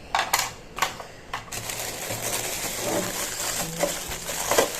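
Plastic vegetable-chopper parts being handled: three sharp clicks in the first second and a half, then continuous rustling with small knocks.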